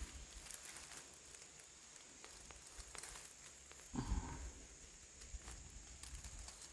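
Faint footsteps and small twig snaps on the woodland floor, with one brief louder low sound about four seconds in.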